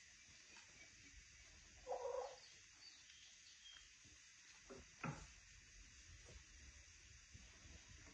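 A hen gives one short low cluck about two seconds in, in an otherwise near-quiet room. A few faint clicks and taps come around five seconds in.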